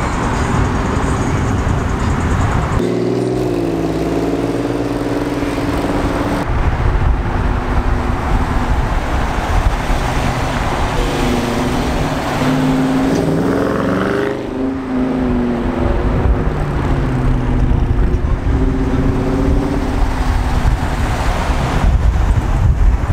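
Engines and exhausts of muscle cars driving past, a deep rumble with engine notes that rise and fall as they rev, heard in several short cuts.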